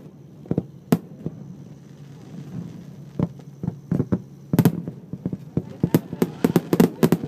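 Fireworks bursting: a few single sharp cracks, then from a little past the middle a quick run of many cracks close together.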